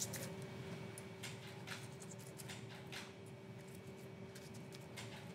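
Quiet room with a faint steady hum, under a few soft taps and brushing strokes of a pastry brush dabbing melted butter onto baked pretzels.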